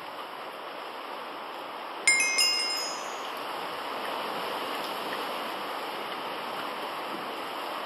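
Steady wash of surf and wind on a rocky shore. About two seconds in, a bright chime of a few quick bell-like notes stepping upward rings out and fades within about a second.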